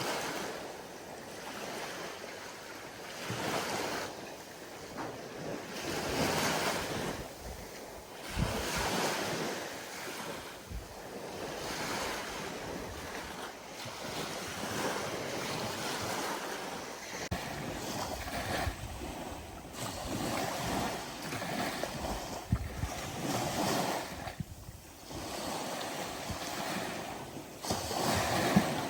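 Ocean waves breaking and washing on the shore, the surf swelling and ebbing every few seconds, with some wind on the microphone.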